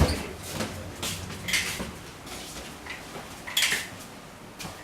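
Several short knocks and clatters, one right at the start and others about a second or two apart.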